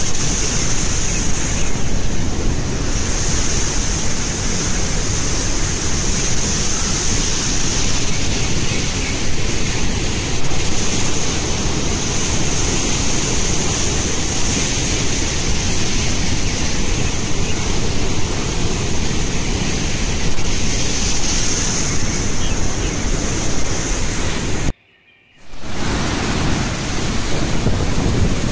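Steady rush of white water from a large waterfall cascading over rocks, close by, with some wind on the microphone. It cuts out for about half a second near the end.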